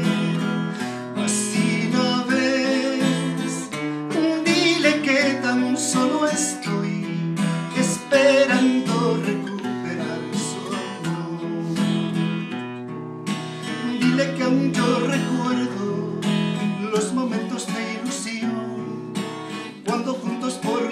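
Acoustic guitar strumming chords in an instrumental passage between sung verses.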